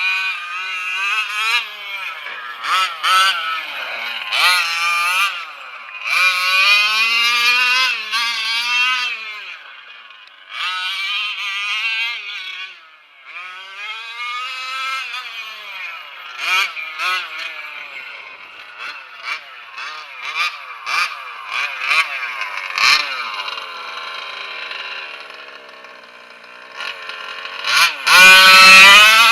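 Two-stroke gas engine of a Losi 1/5 Monster Truck XL with a Bartolone Big Bore pipe, revved in short repeated throttle bursts whose pitch rises and falls, dropping back between bursts. The loudest, highest rev comes near the end.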